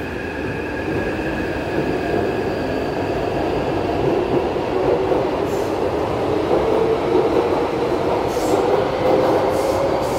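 Taipei Metro C381 electric train pulling out along the platform and picking up speed. A steady rumble of steel wheels on rail grows louder, with a motor whine rising in pitch over the last few seconds.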